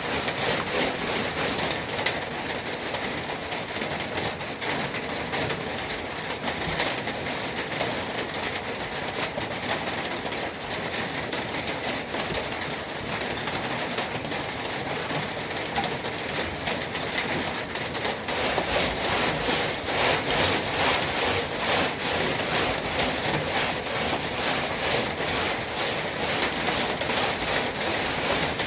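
Coarse 60-grit sandpaper rasping steadily against a truck toolbox as it is sanded; about two-thirds of the way through, the sound turns into louder, regular back-and-forth strokes.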